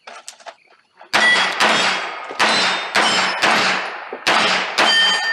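A pistol firing a fast string of about seven shots at steel targets, each hit answered by the ringing clang of the struck steel plate. After the last shot near the end, a plate rings on briefly.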